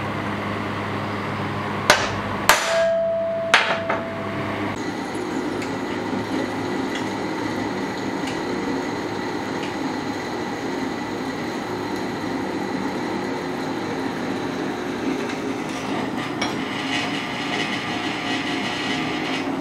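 Three hammer blows on a center punch marking steel plates, the last two leaving the plate ringing with a clear tone. A few seconds in, a Ridgid bench drill press takes over, running steadily as it drills the steel plates.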